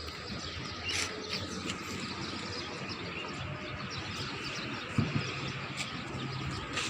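Outdoor park ambience: a steady background hum with faint bird chirps and a few light knocks.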